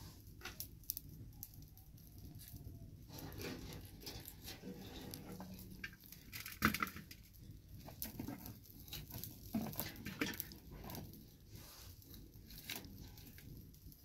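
Kitchen knife cutting through raw cauliflower stalks and florets: irregular crisp crunches and snaps, one louder crack about seven seconds in.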